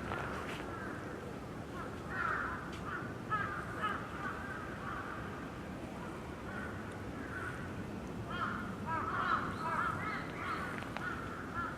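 Many short bird calls overlapping in quick succession, busiest about two seconds in and again from about eight seconds, over a steady low background rumble.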